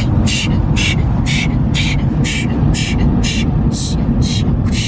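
Automatic car wash machinery heard from inside the car: a steady low rumble under a rhythmic hiss that pulses about twice a second.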